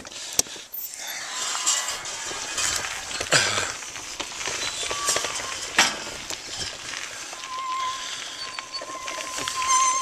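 Outdoor rustle and handling noise from a handheld camera and earphone microphone while walking, with a few sharp knocks. A short falling vocal sound comes about three seconds in, and a steady high tone starts about halfway through.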